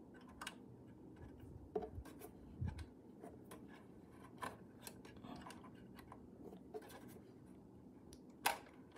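Faint, scattered clicks and scrapes of a coin-cell battery being worked into its metal holder with a flathead screwdriver, with one sharper click near the end.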